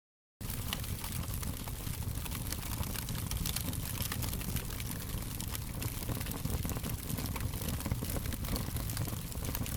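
Wood fire crackling: many small irregular pops and snaps over a low steady rumble. The sound cuts out completely for a split second at the very start, then carries on unchanged.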